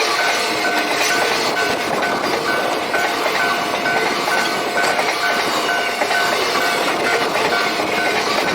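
Freight train rolling through a level crossing, wheels clattering steadily over the rails. The crossing's warning bell rings throughout in an even beat of about two and a half strokes a second, with a steady tone that stops near the end.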